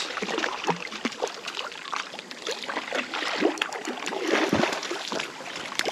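A hooked rainbow trout thrashing at the surface, making an irregular run of wet splashes as it is played in toward the bank.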